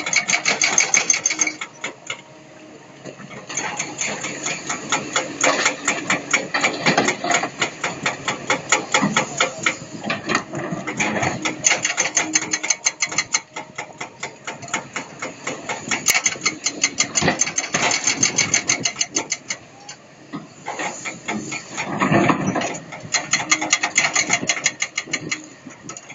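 Kobelco excavator's diesel engine working with a rapid, even clatter that swells and eases several times as the machine loads.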